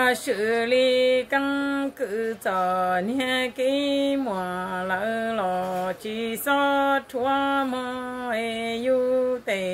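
A woman singing unaccompanied in a chant-like Hmong style, holding long notes that step between a few pitches, with short breaks between phrases.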